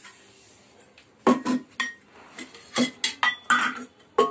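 Metal kitchen pots and utensils clattering and clinking as they are handled: a run of about eight sharp knocks, some ringing briefly.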